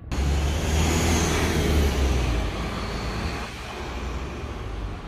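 Street traffic: a motor vehicle passes close by, a loud low rumble with road noise that is strongest for the first two seconds or so and then eases off.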